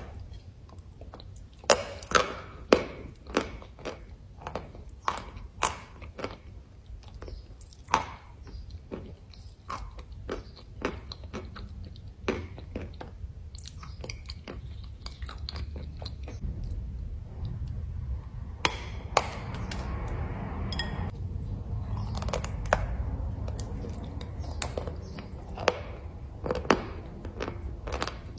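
A person biting into and chewing pieces of chalk close up: irregular crisp crunches and cracks, sometimes several a second.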